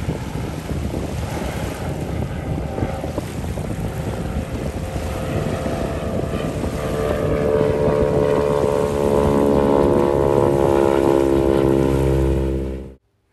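Single-engine floatplane flying past low, its propeller and piston engine drone growing steadily louder as it comes closer, with wind on the microphone. The sound cuts off suddenly near the end.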